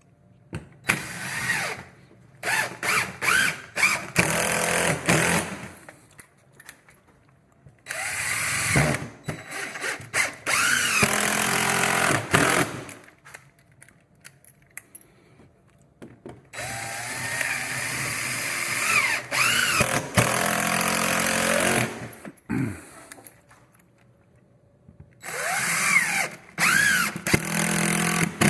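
Power drill/driver driving screws: four separate runs of a few seconds each, the motor speeding up and slowing down with the trigger, with pauses between screws.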